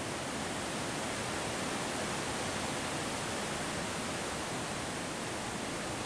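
Wind blowing steadily: an even, constant rushing hiss.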